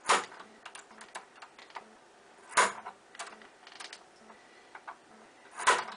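A bump key being struck into a Schlage deadbolt lock: three sharp metallic strikes about three seconds apart, with lighter clicks of the key being pulled back out between them. The pins are not setting at the shear line, so the lock does not open.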